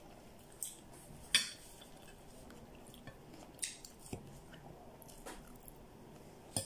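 A metal fork clinking and scraping against a plate a handful of times as food is picked up, with soft chewing between.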